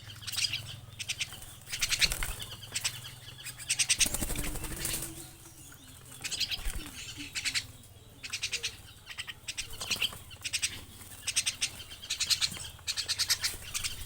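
Small birds calling in short, rapid trills, each burst under a second long, repeated over and over.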